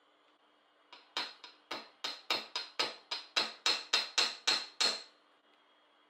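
Open-end wrench clicking against metal at the crankshaft end of a Homelite chainsaw engine: a run of about fifteen sharp metallic clicks, some three or four a second, growing louder and stopping about five seconds in.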